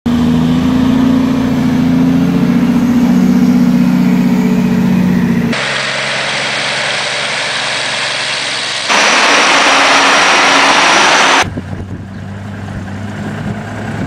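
Heavy Pacific logging truck diesel engines heard in a run of short clips joined by abrupt cuts: first a loaded log truck's engine running with a steady pitched drone, then about five and a half seconds in a cut to a noisier stretch, a louder rushing noise from about nine seconds, and a quieter low engine hum near the end.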